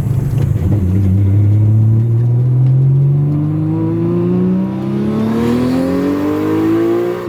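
Nissan Skyline R34 GT-R's tuned RB26 straight-six pulling hard under full throttle, its revs climbing steadily through one long gear. The revs cut off sharply at the very end as the throttle is lifted.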